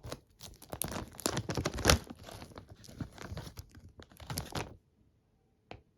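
Small item packaging being torn open and crinkled by hand, a dense crackling run lasting about five seconds, followed by one short click near the end.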